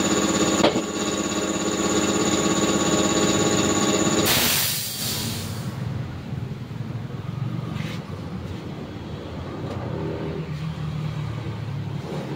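Air compressor motor running steadily, then shutting off about four seconds in with a loud hiss of released air that fades over a second or two. A quieter low rumble follows.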